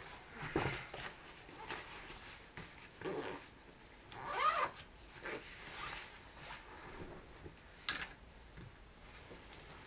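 Bags being packed by hand: fabric and nylon rustling and shifting in irregular bursts, with a zipper being drawn, the loudest pull about four and a half seconds in.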